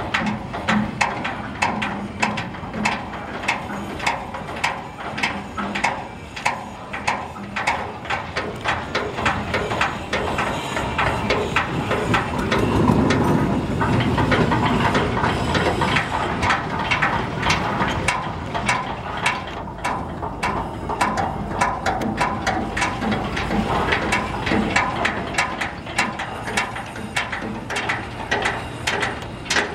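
A boat's diesel engine running with a rapid, uneven clatter of knocks. A deeper rumble swells up about halfway through and then eases.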